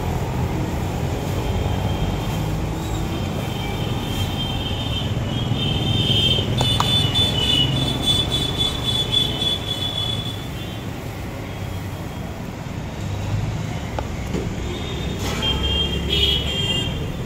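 Steady low rumble of road traffic, with a thin high-pitched sound that comes in twice, for several seconds each time.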